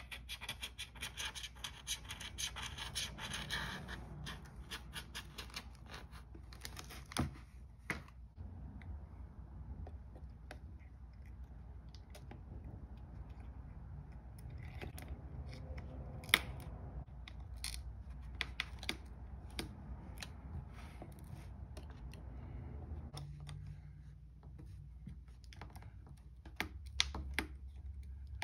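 Handling noise from hands working on an opened iPad Air: scratchy rubbing and rapid small clicks over the first several seconds, then scattered light clicks and taps as the parts are handled, one sharper click in the middle, over a low steady hum.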